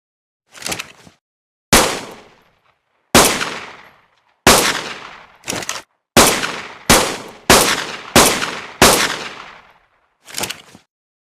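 Synthetic pistol gunshot sound effect: eight sharp shots, each dying away over about a second, spaced irregularly at first and then five in quicker succession less than a second apart. Three quieter, shorter snaps come near the start, in the middle and near the end.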